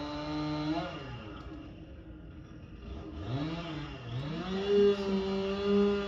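Small two-stroke engine of a gas pole saw running at speed, dropping to idle about a second in, blipping briefly, then revving back up and holding high near the end.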